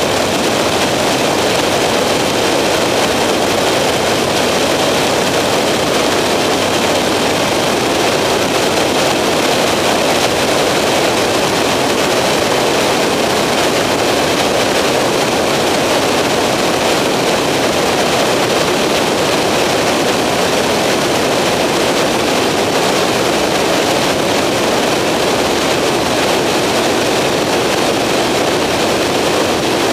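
Skyranger microlight in flight: its engine and propeller drone steadily, mixed with a rush of air past the cockpit.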